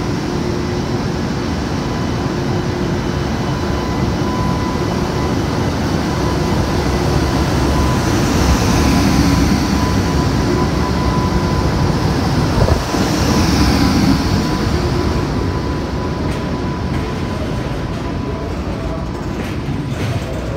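JR Freight EH200 electric locomotive departing, running past and followed by a train of oil tank wagons rolling by. The rumble swells as the locomotive goes past in the middle, with one sharp knock a little past halfway, then settles into the steady running noise of the wagons.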